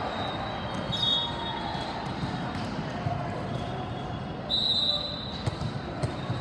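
Volleyball referee's whistle over the steady din of a busy tournament hall: a faint blast about a second in and a louder, half-second blast about four and a half seconds in. Voices and the sharp knocks of volleyballs being hit and bouncing on the courts carry through, with a few knocks near the end.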